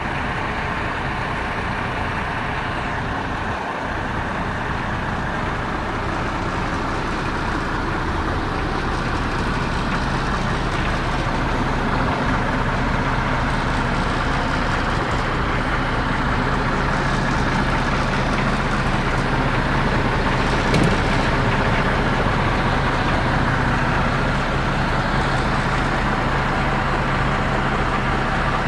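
MAN TGX 26.440 tractor unit's six-cylinder diesel engine idling steadily, growing a little louder as it goes, with one short click about two-thirds of the way through.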